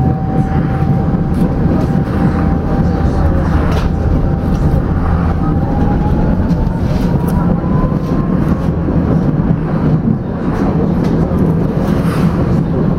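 Tram running along the street track, heard from inside the car: a steady rumble of wheels on rails, with a thin electric motor whine that slowly climbs in pitch about halfway through as the tram picks up speed, and scattered light clicks.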